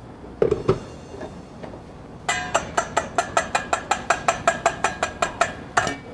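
A single clunk about half a second in, then rapid sharp metal tapping, about five ringing clicks a second for three to four seconds: a strainer being knocked against a steel mixing bowl to work the strained snap-pea purée through.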